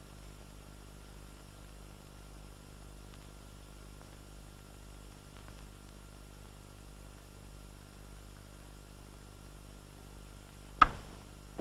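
Steady low hiss and hum of an old film soundtrack with no dialogue, then one sharp knock with a brief ring near the end.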